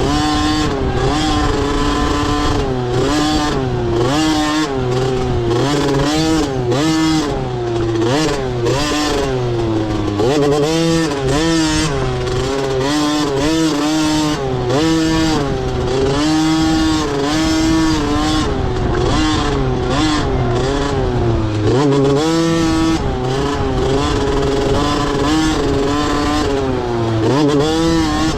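Motocross dirt bike engine racing around the track, its pitch repeatedly climbing as the throttle opens and dropping back at shifts and corners.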